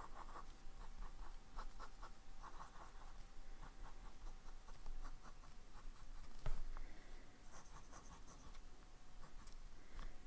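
Medium-nib Pilot Custom 74 fountain pen writing in short scratchy strokes on paper, forming loops, hash marks and lines. A single sharp tap about six and a half seconds in is the loudest sound.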